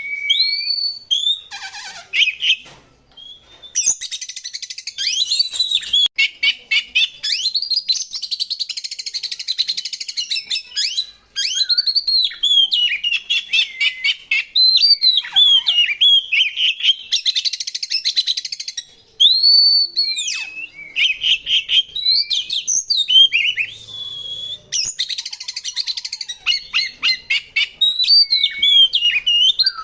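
Oriental magpie-robin (kacer) singing continuously: a varied song of rising and falling clear whistles, broken several times by fast, harsh rasping chatter.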